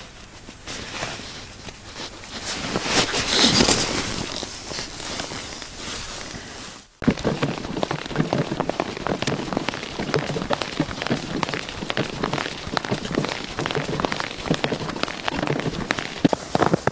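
Footsteps crunching through snow on river ice: a dense, irregular crackling that starts abruptly about seven seconds in. Before it, a swelling and fading rush of noise.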